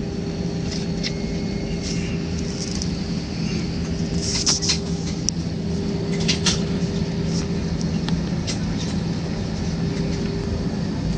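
Steady drone inside an airliner cabin: constant engine and air noise with a low hum, and a few short clicks and rattles over it.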